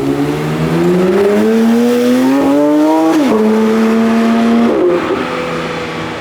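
Performance car's engine accelerating hard, its pitch rising for about three seconds, then dropping sharply at an upshift and holding steady; near five seconds the pitch drops again and the engine sound fades as the car moves away.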